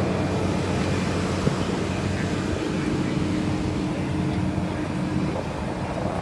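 Steady engine drone with a low, even hum that does not change in pitch, fading slightly near the end.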